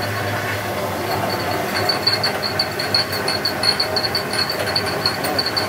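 Small hydroelectric plant running: a water turbine turning a belt-driven generator. A steady mechanical hum, with a rapid regular ticking that comes in about two seconds in.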